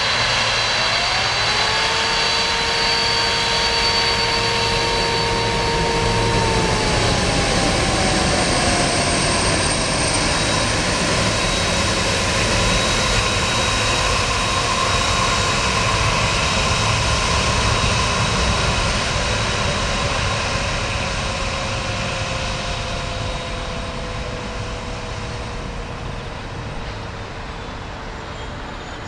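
Boeing 767-300's jet engines running as it taxis past, the noise fading as it moves away over the last ten seconds or so. Under it, an outdoor warning siren winds up about a second in, holds a steady wail for several seconds, then slowly winds down: the local disaster-warning siren sounding noon.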